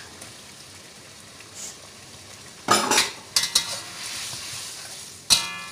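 Metal spatula stirring chicken meat into chilli paste frying in a metal wok: a faint sizzle at first, then scraping and clattering against the wok from about three seconds in, with one sharp, ringing clang near the end.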